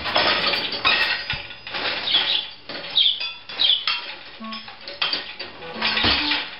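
Dishes and cutlery clinking and clattering as they are loaded into a dishwasher's racks, in a quick run of irregular knocks and clinks.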